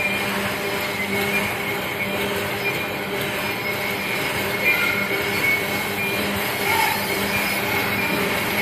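Automatic cutlery packing machine running: a steady mechanical hum with a thin whine over it and a few light knocks.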